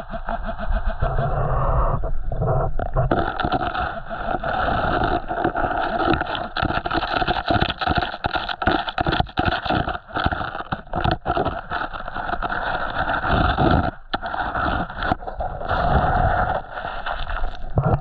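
Creek water sloshing and splashing in an irregular run as someone wades and sweeps a metal detector through it.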